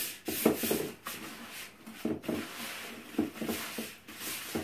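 Gloved hands mixing trout chow pack bait (fish-feed pellets wetted with egg whites) in a plastic bucket: irregular gritty rubbing strokes, about two or three a second.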